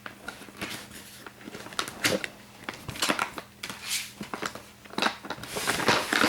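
Plastic shrink-wrap on a sealed CD case crinkling and crackling as fingers pick at it, in irregular bursts with a louder rustle near the end.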